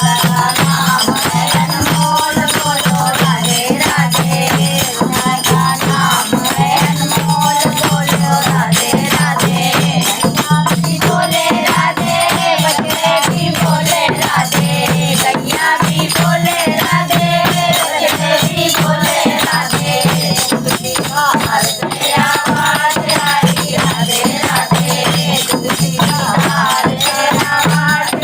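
Hindi devotional folk song: voices singing a bhajan over steady rhythmic percussion with a jingling, rattling shaker or tambourine.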